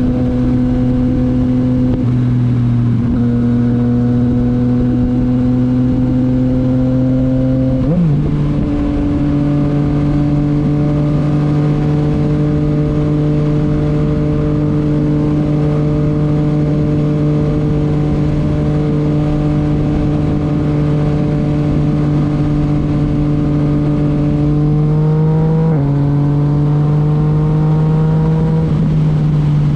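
Yamaha MT-09 three-cylinder engine through a titanium Akrapovic exhaust, running at steady, moderate revs while riding. The note climbs slowly, with a gear change about eight seconds in and another near the end.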